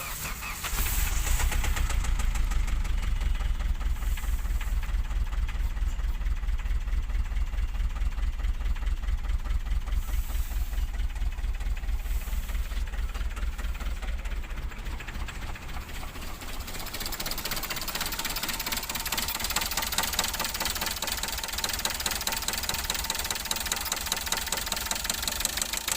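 Hyundai i20 diesel engine starting about a second in and running with a heavy, rapid knocking; the mechanic calls the noise dangerous and suspects a piston touching the cylinder head.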